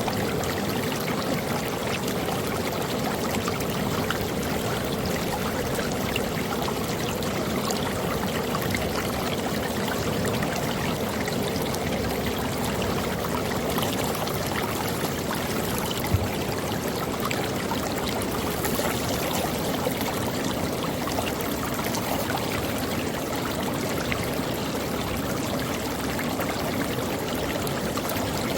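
Creek water running steadily, an even rushing and trickling, with one brief low thump about sixteen seconds in.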